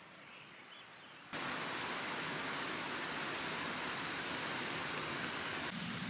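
Faint ambience, then about a second in a loud, steady rushing noise cuts in abruptly and continues, shifting slightly near the end.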